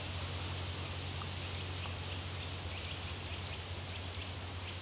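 Outdoor ambience at a reedy backwater: a steady soft hiss over a low hum, with a few faint, short, high bird chirps.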